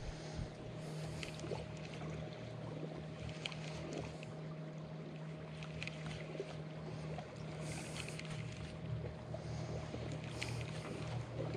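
Water lapping against the hull of a small fishing skiff, with a steady low hum underneath and a few light clicks and brief swishes.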